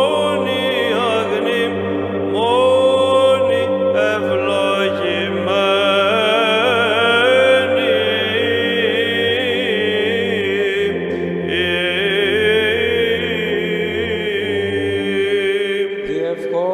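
A man chanting a Greek Orthodox Byzantine hymn solo, in a slow, ornamented melody over a steady low drone (the ison). The chant ends near the end.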